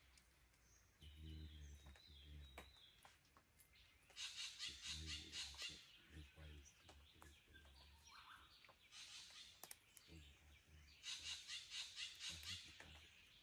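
Faint forest dawn chorus of wild Australian birds after rain. Several times a bird gives a rapid run of high pulsed notes, lasting one to two seconds each time, with a short whistled phrase early on and low repeated notes underneath.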